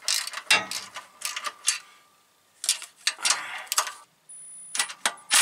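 Ratchet wrench clicking in short bursts, with pauses, as the clutch cover bolts are run down onto the flywheel.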